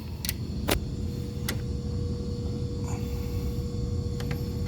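A few sharp clicks and taps of hand tools working on a contactor's wire terminals, over a steady low machinery rumble. A steady hum-like tone comes in under a second in and holds.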